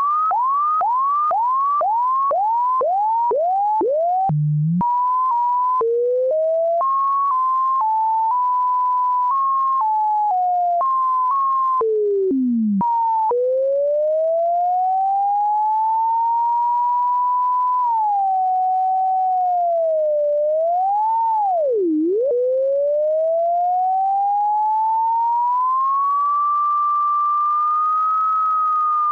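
A single synthesized sine tone whose pitch tracks a graphed function's height. It first repeats quick upward sweeps, about two a second, then jumps in small steps with a drop to a low pitch about halfway. After that it moves in one long smooth glide that rises, dips sharply about two-thirds of the way in, then climbs high again and starts to fall near the end.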